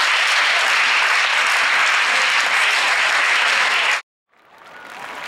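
Audience applauding, a dense steady clapping that cuts off abruptly about four seconds in; after a moment of silence the applause fades back in.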